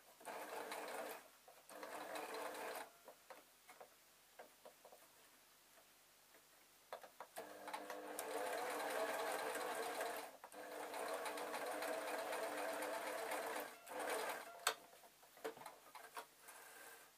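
Electric sewing machine stitching in runs: two short runs in the first three seconds, then a long steady run of about six seconds with a brief stop in the middle, and a few quick bursts near the end.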